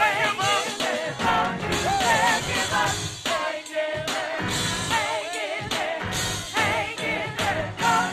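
Gospel choir singing with vibrato over live band accompaniment, with drums keeping a steady beat.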